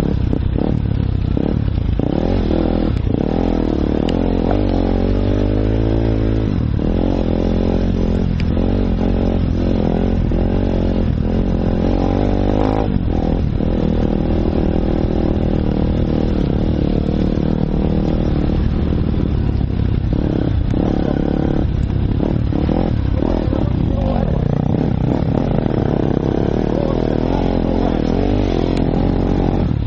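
Enduro dirt bike engine under way off-road, revving up and down with constant throttle changes, its pitch rising and falling with short drops as the throttle is rolled off.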